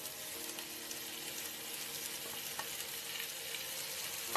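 Chopped beef sizzling steadily in hot oil in a nonstick pan, just added on top of browned garlic, ginger and onion. A single sharp knock near the end.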